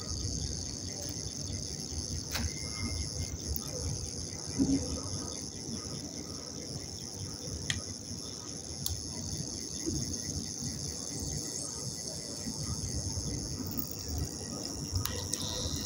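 Dry clay lumps soaking in water in a steel bowl, with a few sharp clicks as the water works into them. A steady high chirring runs underneath, with a low rumble.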